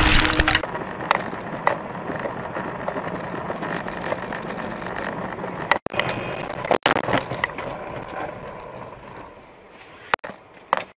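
Steady vehicle noise that slowly fades. It is dotted with a few sharp clicks and breaks off briefly twice near the middle.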